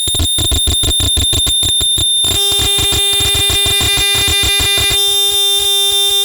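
Harsh noise from a chain of effects pedals ending in an EarthQuaker Data Corrupter and a Digitech Death Metal distortion: a loud, rapidly stuttering electronic tone pulsing several times a second, with a steady held tone joining about two seconds in.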